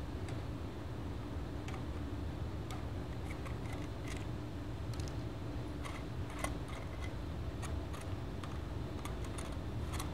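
Scattered small metallic clicks and ticks of a screwdriver and hands working screws and parts on a metal camera-tube module, over a low steady hum.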